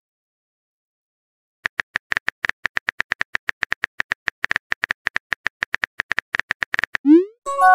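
Texting-app keyboard typing clicks, a rapid irregular run of about eight short taps a second, starting about two seconds in and lasting about five seconds as a message is typed. Near the end a short rising swoosh and a chime sound as the message is sent.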